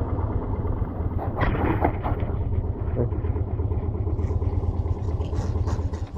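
Motorcycle engine idling steadily with a low, even hum.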